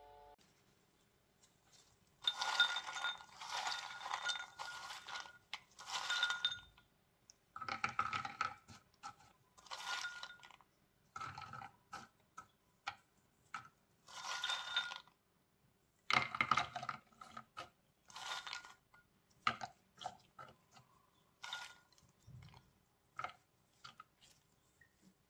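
Roasted mixed nuts clinking and rattling as they are taken by the handful from a bowl and dropped into baked tart shells. The sound comes in repeated bursts of quick clicks, starting about two seconds in.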